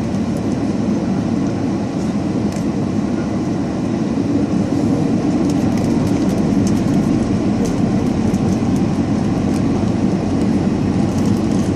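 Steady loud rumble inside an airliner cabin: the jet engines running and the wheels rolling on the ground. Scattered light clicks and rattles come in during the second half.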